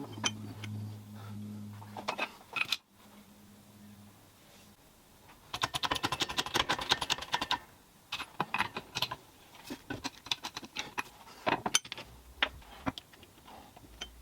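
Small metal drill press parts being handled, clicking and rattling, with a dense run of rapid clicks a few seconds in and scattered knocks after it.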